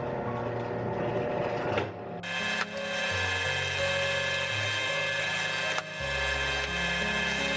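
Benchtop drill press running, its small bit drilling screw holes through a plywood panel: a steady motor whine that shifts and brightens about two seconds in, with a few brief clicks. Background music with a stepping bass line plays underneath.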